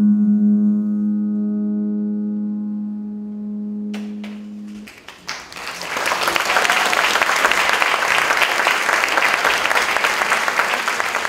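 The music's last held note, which stops about five seconds in, followed by a few scattered claps that swell into full audience applause.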